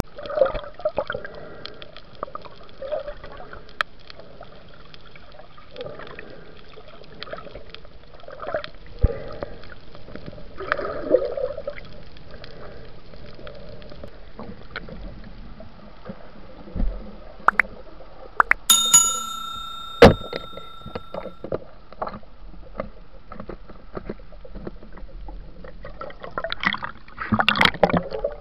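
Underwater sound picked up by a diver's action camera: a murky water hiss and gurgle with scattered clicks and bubble bursts. About 19 seconds in, a ringing tone sounds for a couple of seconds, and near the end comes a rush of bubbles.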